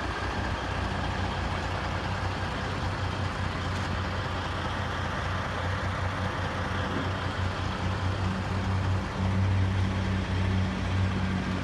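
Semi truck's diesel engine idling steadily, a low even hum that grows louder about nine seconds in.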